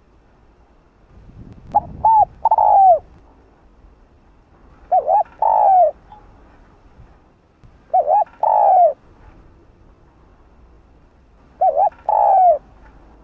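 Spotted dove cooing: four calls about three seconds apart, each two short notes followed by a longer, falling coo.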